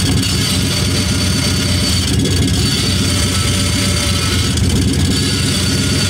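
Car engine running with the clutch pedal held down, making a steady metallic noise from the clutch bell housing. This noise is the sign of the release bearing pressing unevenly on worn or fatigue-broken pressure-plate diaphragm fingers.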